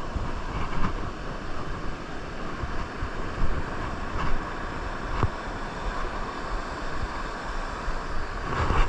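Large waves washing in at high tide, with wind rumbling on the microphone.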